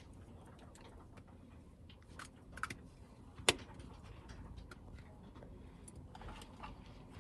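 Small plastic bottles being handled and set down on a tabletop: a few light clicks and taps, the sharpest about three and a half seconds in.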